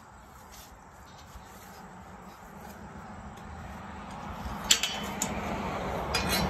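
Old rusty wrought-iron gate being handled: sharp metal clinks, a loud pair about three-quarters of the way in and another pair near the end, over a noise that grows steadily louder.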